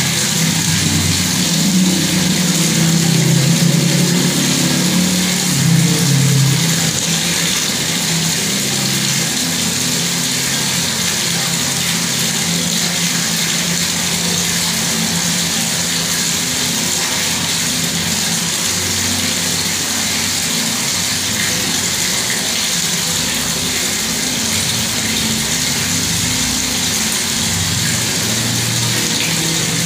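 Bathroom water tap running steadily, water pouring and splashing, with a low rumble that is strongest in the first several seconds.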